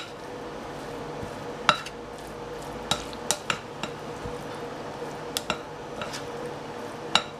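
Shredded chicken being stirred with a utensil in a ceramic mixing bowl: soft scraping and rustling, with the utensil knocking sharply against the bowl about seven times at uneven intervals. A faint steady hum lies underneath.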